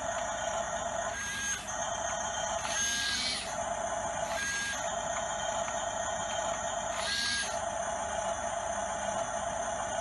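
Remote-control toy bulldozer's electric drive and gearbox whirring steadily as it is driven. The sound changes briefly four times, about a second and a half, three, four and a half and seven seconds in.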